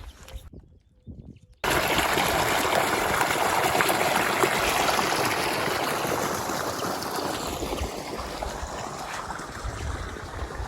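Running water, a steady flow that starts abruptly about a second and a half in and eases off somewhat in the second half.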